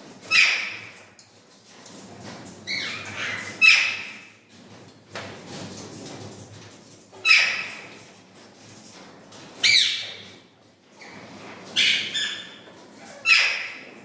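Indian ringneck parakeets squawking: about seven short, harsh, loud calls, one every second or two.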